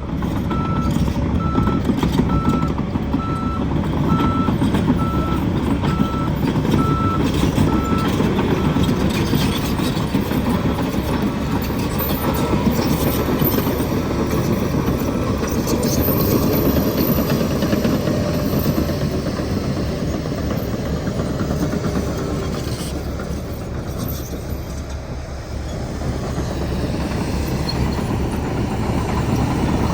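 Heavy diesel vehicle running loudly, with a backup alarm beeping about once a second for the first several seconds and then fading away.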